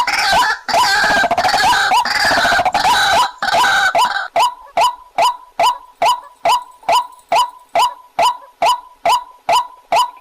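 White-breasted waterhen calling: a busy stretch of overlapping, chattering call notes for about four seconds, then a single even series of short, clipped calls, about two a second.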